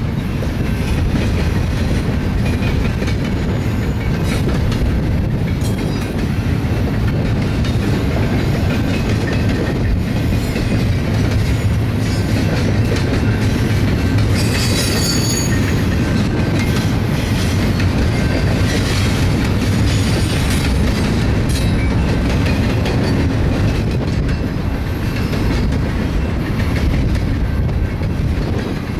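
Double-stack intermodal freight cars rolling past: a steady loud rumble with wheels clacking over rail joints. A high metallic wheel squeal rises briefly about halfway through.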